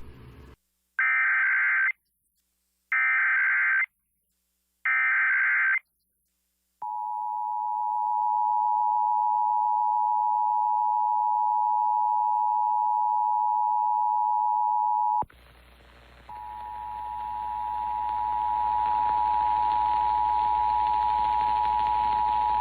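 Emergency Alert System test: three short bursts of the SAME digital header data, then the steady two-tone EAS attention signal. About 15 seconds in, the attention tone cuts off, then returns a second later under a steady hiss.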